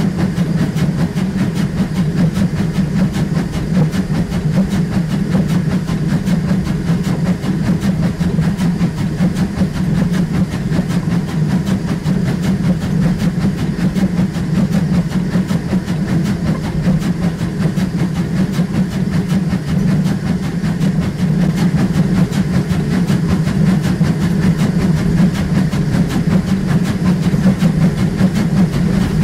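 Steam locomotive and its train running steadily, a loud continuous running noise with a strong low hum and a dense, fast clatter, growing a little louder near the end.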